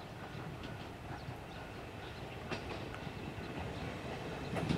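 Ichibata Electric Railway train approaching, its low rumble growing louder, with a sharp wheel clack about halfway and another near the end. Over it a Japanese level-crossing warning bell rings in even, repeated dings.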